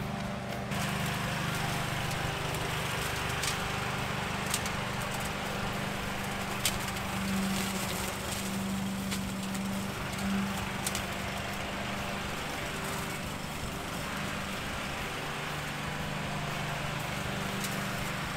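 Petrol rotary push mower running steadily while being pushed over brick pavers, with a few sharp ticks of grit and debris striking the blade deck.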